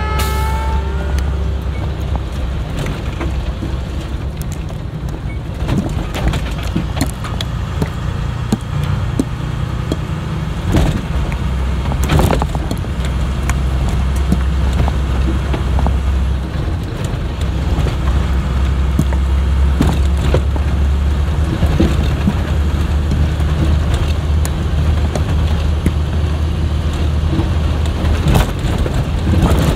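Converted school bus driving along a rutted dirt road: a steady low drone of engine and road noise, with sharp knocks and rattles now and then as it jolts over bumps.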